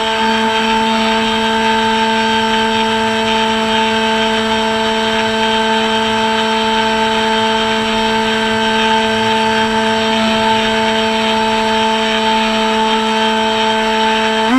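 Electric motor and propeller of an RC flying wing in flight, heard through the plane's onboard mini camera: a steady whine that drops to a lower pitch at the start as the throttle comes back, holds there, and rises again at the very end.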